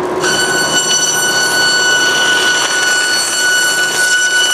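High-speed vertical bandsaw (Forrest Model 236R, blade speed about 3,000 feet per minute) running with a steady high-pitched whine over a broad machine rush. The whine sets in sharply just after the start and cuts off abruptly near the end.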